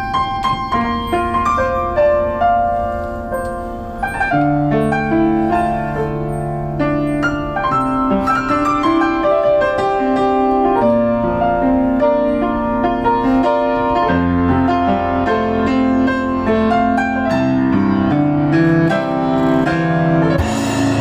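Piano playing an improvised solo passage, with a run of melody and chords and a low bass line joining about four seconds in. A brief noisy crash comes in right at the end.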